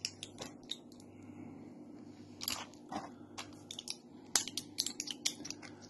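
Foil blister pack of capsules being handled and pressed: a run of sharp crinkles and clicks, sparse at first and coming thick and fast from about halfway.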